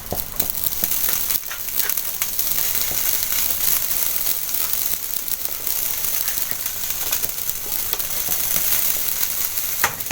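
A crepe topped with sausage, pepper and tomato sizzling in a hot pan: a steady crackling hiss with a few small clicks.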